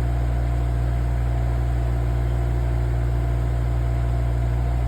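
Cat excavator's diesel engine running at a steady drone.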